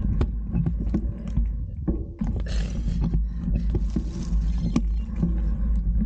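Mountain bike rolling over a rocky dirt trail: frequent knocks and rattles from the bike and tyres on stones, over a steady low rumble of wind and vibration on the bike-mounted camera's microphone.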